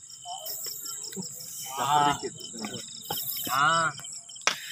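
Field crickets chirping steadily in a fast, high trill. Two short, drawn-out voiced sounds come about two and three and a half seconds in, and a sharp knock near the end.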